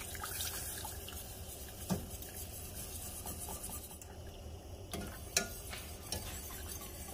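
Half-and-half being poured into a stainless steel saucepan of roux and whisked in with a wire whisk: soft pouring and stirring, with a few light clinks of the whisk against the pan.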